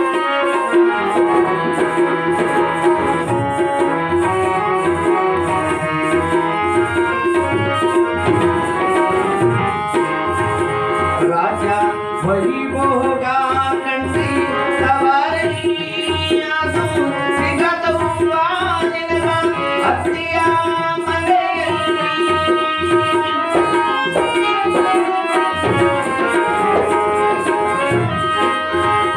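Live Indian music: a harmonium playing sustained reedy notes and melody over a steady drone, accompanied by hand-drum percussion.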